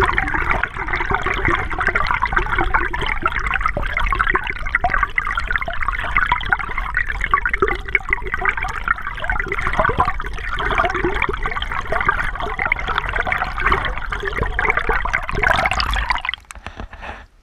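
Fast-flowing stream water heard underwater: a steady, dense rushing and churning that drops off sharply near the end.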